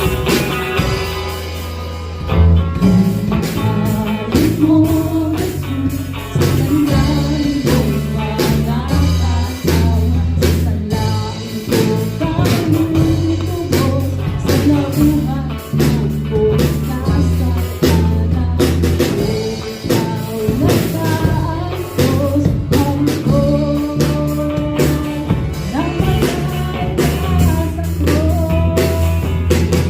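A live band playing with a drum kit, bass and guitar, and a singer carrying the melody.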